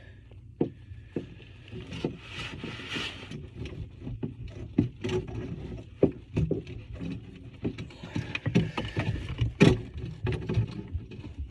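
Tub drain parts being handled and fitted by hand: scattered clicks and knocks with rustling and scraping.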